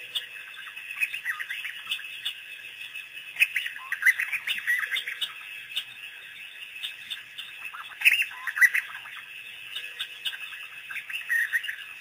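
African wild dogs twittering: bursts of high-pitched chirping calls that sweep in pitch, loudest about four and eight seconds in, the social calls of the pack greeting and playing.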